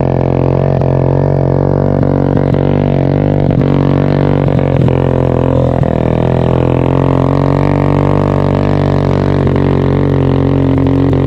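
Background music built on a steady low droning tone that holds its pitch throughout.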